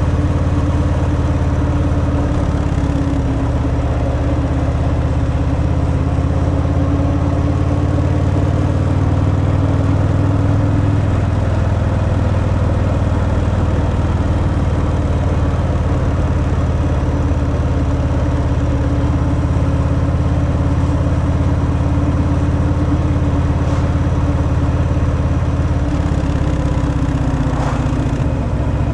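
Stock Harley-Davidson Fat Boy V-twin engine running steadily on its stock exhaust, with its pitch shifting slightly a few times.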